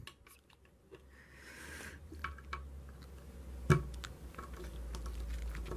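Small plastic clicks and light handling of LEGO minifigure pieces being fitted together, with one sharper click nearly four seconds in, over a low background hum.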